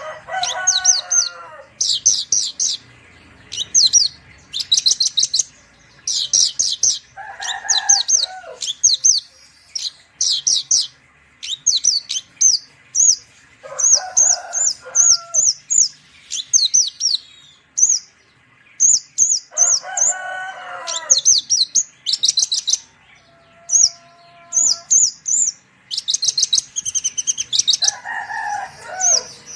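Javan bush lark (branjangan) singing: repeated bursts of rapid, high chirping notes, with a lower warbling phrase about every six seconds.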